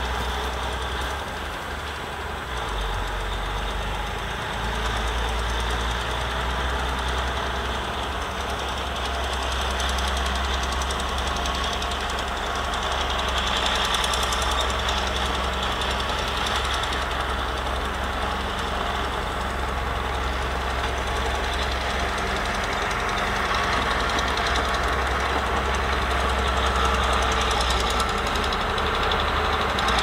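Diesel engine of a small crawler bulldozer running steadily under load as the dozer pushes a heap of wet soil.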